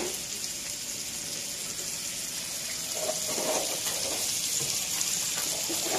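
Thick ribeye steaks frying in butter and oil in a pan, a steady sizzling hiss.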